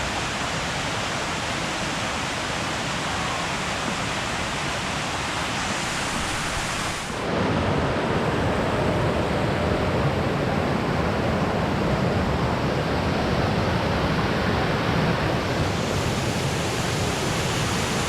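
Steady rush of falling water from waterfalls and cascades. About seven seconds in it changes abruptly to a louder, deeper rush.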